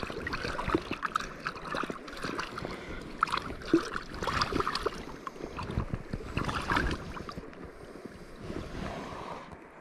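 Jacket fabric rustling and rubbing close to the microphone, a jumble of scrapes and small knocks that grows quieter near the end.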